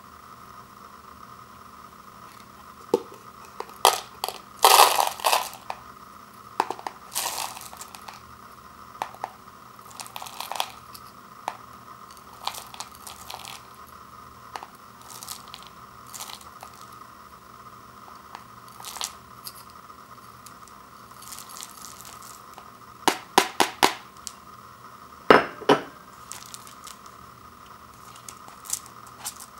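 Dry rice-and-seasoning mix rattling and rustling in a ceramic bowl and pouring into a cup, with small clinks and knocks of the bowl against the cup. It comes in short scattered bursts, the loudest about five seconds in and again near twenty-five seconds.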